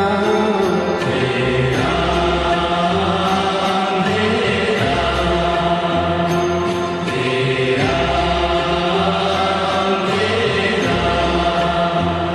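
Devotional mantra chanting with music: a sung line of held notes that shift every two or three seconds.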